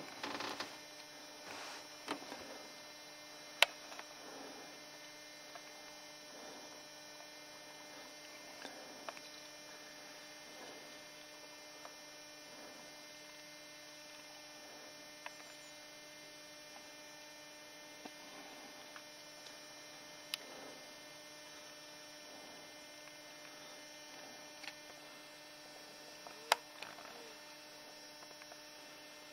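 Faint steady electrical hum made of many held tones, with rustling from the camera being handled in the first couple of seconds and a few sharp clicks scattered through.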